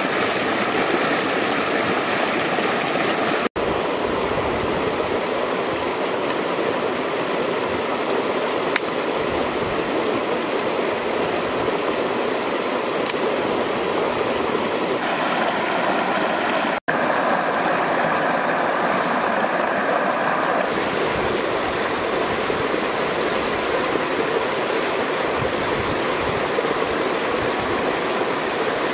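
Rushing water of a rocky stream cascading between boulders, a steady loud rush that cuts out for an instant twice.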